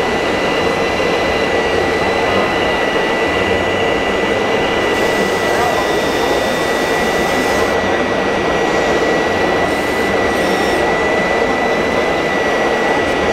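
A small electric motor of a 1/14-scale RC model machine, running with a steady high whine over a hiss. A brighter hiss joins for a few seconds in the middle.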